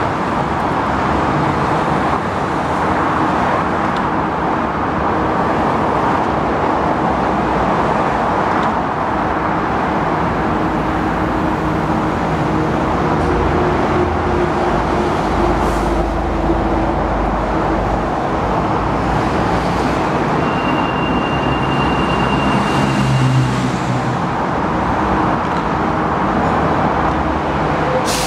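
Steady hum and rush of an Alstom NS-16 metro train standing at the platform, its air-conditioning running, over steady traffic noise. A thin high tone sounds for about three seconds a little past the middle.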